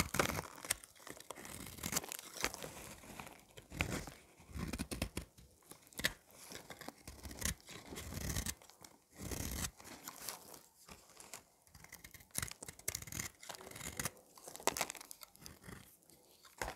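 A blade scraping and shaving a bar of dry soap. It makes crunchy, crackling strokes that come in irregular bursts of varying length.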